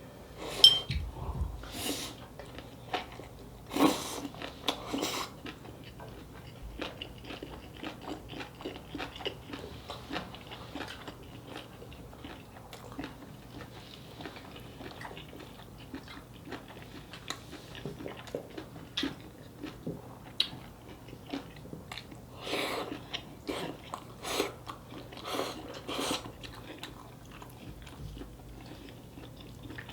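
Close-miked eating of dak-galbi with cheese: chewing and biting with wet mouth noises and small clicks, and a few louder bursts of eating noise scattered through.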